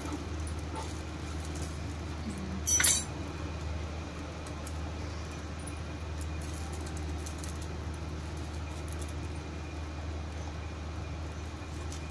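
A metal utensil clinks once, briefly, on an appe pan about three seconds in, with a few faint small clicks, over a steady low hum.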